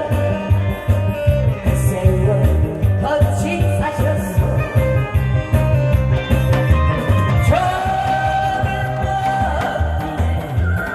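A pumba performer singing a song over amplified backing music with a steady bass beat, holding long notes that slide in pitch.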